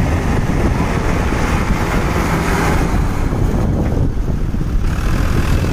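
Mahindra tractor's diesel engine running under load as it pulls a loaded trolley through deep mud, with wind buffeting the microphone.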